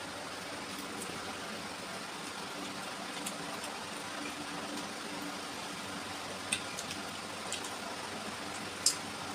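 Eating sounds: a few short wet clicks and smacks from chewing and from fingers working rice and curry on a plate, the loudest near the end. Under them runs a steady background hiss with a faint hum.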